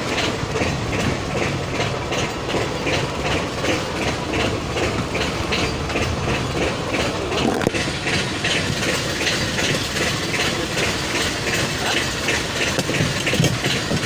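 A fishing boat's engine running steadily, with an even rhythmic clatter of about three to four beats a second over a low rumble.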